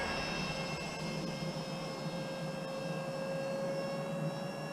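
Twin electric ducted fans of a radio-controlled A-10 model jet whining steadily in flight, the pitch dipping slightly in the first second, then holding.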